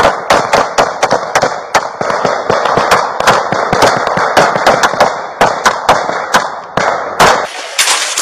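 Rapid, sustained gunfire during a police shootout: shot after shot in quick, uneven succession, about three a second.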